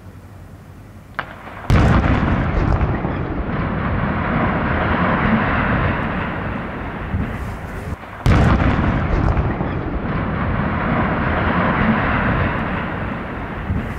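Demolition explosive charges going off on steel conveyor gantries and transfer towers. A small pop comes just before a sharp blast about two seconds in, followed by a long rumble as the structures come down. A second sudden blast about eight seconds in is again followed by rumbling.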